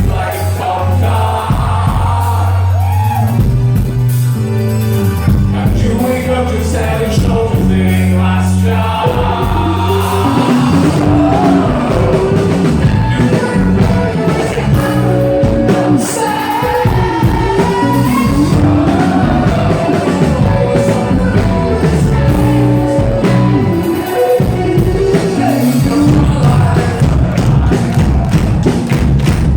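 Live rock band playing loud, full-band music with a lead vocal singing over it.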